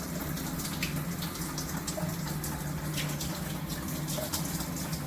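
Water spraying steadily from a Moen Engage Magnetix handheld shower head.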